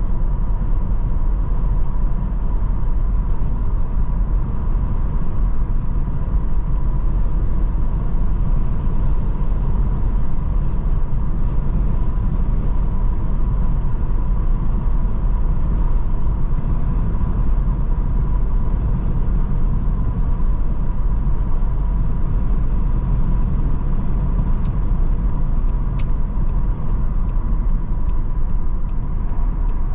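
Car cruising along a highway, heard from inside the cabin: a steady low road-and-engine rumble with a faint constant whine. From about 25 seconds in, a faint, evenly spaced ticking sets in, with a sharper single click near it.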